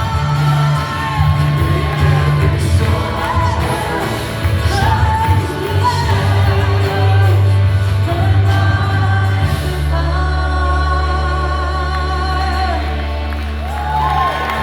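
Live church worship music: singers over a band with a strong bass. About two-thirds of the way through, the band settles onto a held low chord and the voices thin out, then pick up again near the end.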